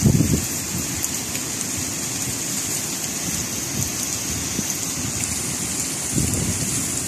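Steady hiss of heavy tropical-storm rain, with gusts of wind rumbling on the microphone at the start and again about six seconds in.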